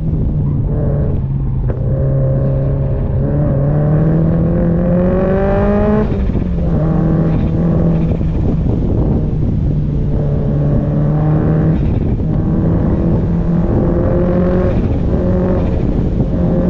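Car engine and exhaust pulling hard through the revs, its note rising in pitch and dropping sharply at gear changes about six and twelve seconds in, then climbing again. Heard from the back of the car.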